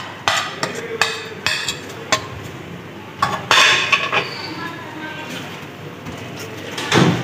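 Sharp clinks and knocks of a spoon against a bowl as cooked carrot filling is scraped out into a frying pan of thick white sauce. After that a silicone spatula stirs the filling through the sauce, with one louder knock near the end.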